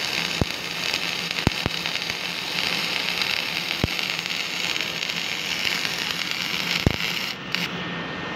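Flux-cored wire-feed (FCAW) welding arc crackling and hissing steadily, with a few sharp pops of spatter. The arc cuts off about seven seconds in.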